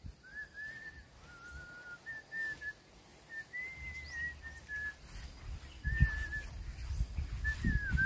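A person whistling a slow tune of clear notes that glide a little. Low thuds come in from about six seconds on.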